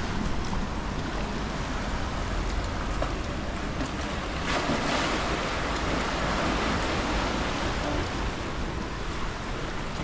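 Sea waves washing in a steady surf that swells a little about halfway through, with wind on the microphone.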